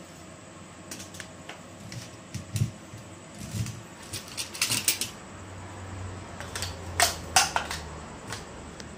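Clicks and light tapping from desoldering a relay off an air-conditioner fan control board, with two loud snaps of a spring-loaded desoldering pump about seven seconds in. A low steady hum sits underneath.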